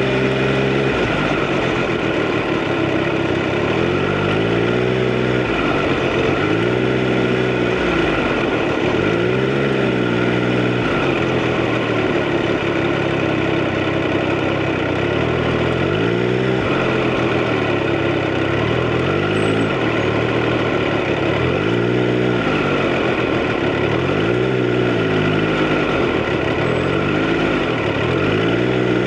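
Triumph Street Triple RS inline three-cylinder engine running under way, its revs rising and falling again every couple of seconds as the throttle is opened and closed.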